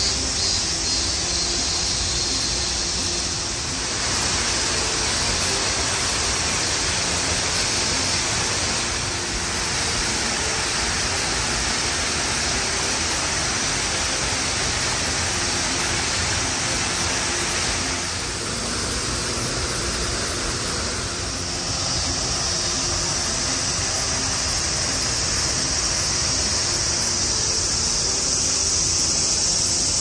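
Steady rush of a garden waterfall: an even, unbroken hiss of falling water.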